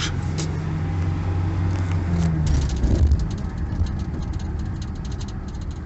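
Engine and cabin noise of a moving vehicle: a steady low engine hum whose note shifts about two to three seconds in, followed by a light, fast rattle.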